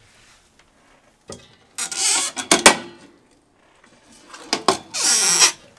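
A railroad car's hinged metal equipment panel being swung shut and then opened again. There are two loud scraping sweeps about three seconds apart, sharp metal clacks around the first, and a scrape that falls in pitch on the second.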